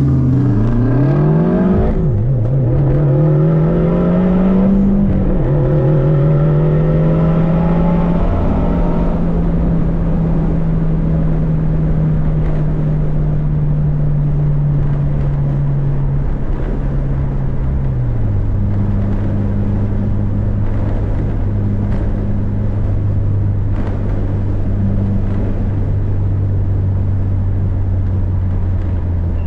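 Subaru turbocharged flat-four engine heard from inside the cabin, accelerating hard from a standstill: the pitch climbs and drops at quick upshifts over the first five seconds. It then settles to a steady cruising note with road noise, and drops to a lower steady note about eighteen seconds in.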